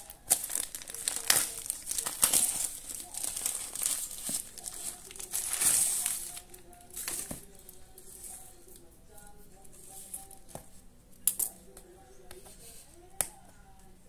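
Brown packing tape and a cardboard parcel crinkling and tearing as they are cut with scissors and handled. It is dense and loud for the first seven seconds or so, then quieter, with a couple of sharp clicks near the end. Faint music plays underneath.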